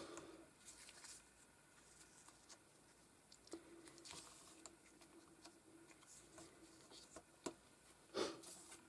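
Near silence, with a few faint taps and scrapes as small card jigsaw pieces are handled and pressed together on a cutting mat.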